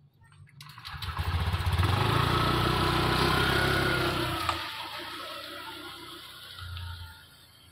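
A motor scooter's engine revving as it pulls away, loudest a second or two in, then fading as the scooter rides off into the distance.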